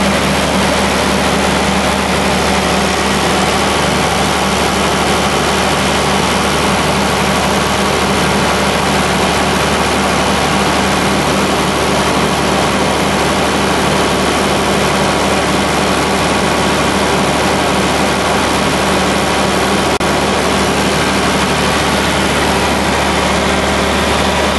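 John Deere 4230 tractor's six-cylinder diesel engine idling steadily, heard up close at the engine bay.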